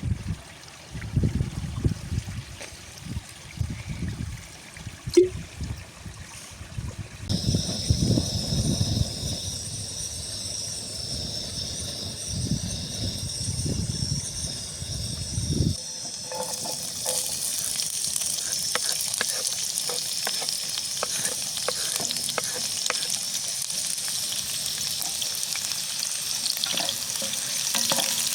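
Low gusts of wind buffeting the microphone, with a faint sizzle joining about a quarter of the way in. Just past halfway the sound changes abruptly to food sizzling in a frying pan, with the clicks and scrapes of a spoon stirring it.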